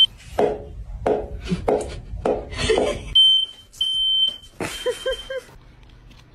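A quick run of about five short cries, then a high electronic beep sounding three times, the last one fainter.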